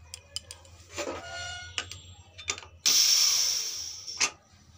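Pressure cooker lid being unlocked and opened: several sharp metal clicks and a brief metallic clink that rings, then a burst of leftover steam hissing out for about a second, fading away, followed by a knock of the lid.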